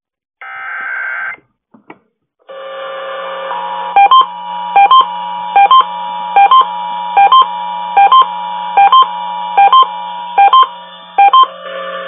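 Emergency Alert System tones from radio receivers: a one-second data burst of the alert code, then a steady electronic tone with sharp paired beeps repeating about every 0.8 s, which cuts off shortly before the end.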